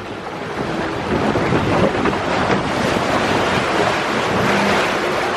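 Steady rushing of water along a log flume ride's channel, mixed with wind buffeting the microphone; it swells a little after the first second.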